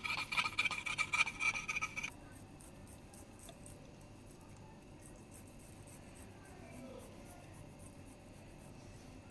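Paneer being grated on a hand grater: quick, rhythmic rasping strokes, loud for about two seconds, then dropping suddenly to a much fainter grating.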